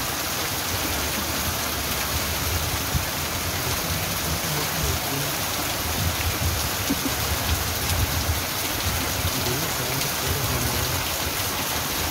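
Heavy rain pouring onto a street and roof, a steady hiss, with water running off the roof edge. A low rumble swells and fades underneath.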